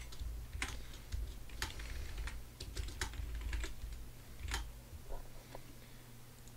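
Typing on a computer keyboard: irregular keystrokes that thin out after about five seconds, over a faint steady low hum.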